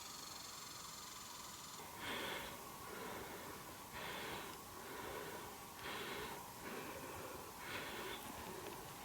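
Rhythmic breathing, starting about two seconds in: a short, airy breath about every two seconds, with softer breaths between them.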